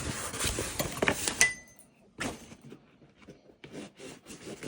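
Fabric chainsaw bag and a small accessory being handled as the accessory is put into the bag's front pocket: rustling for about a second and a half, ending in a sharp click with a brief ring, then a few faint small knocks.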